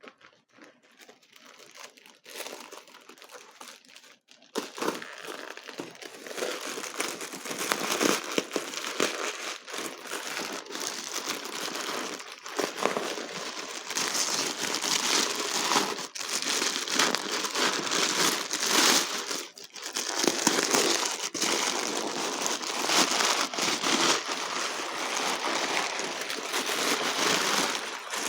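Packing paper being crumpled and pulled away by hand as a wrapped crystal is unwrapped. It is a continuous crinkling, faint and scattered at first, then loud from about four seconds in.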